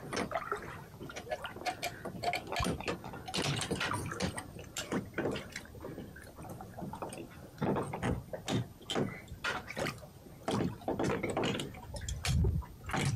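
Water sloshing and splashing, with irregular knocks and clunks of rigging gear being handled.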